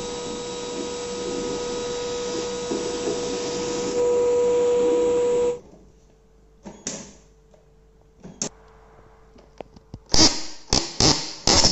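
A small electric motor runs steadily with a whine, gets louder about four seconds in, and is switched off about a second and a half later. A few scattered clicks follow, then a quick series of loud knocks near the end.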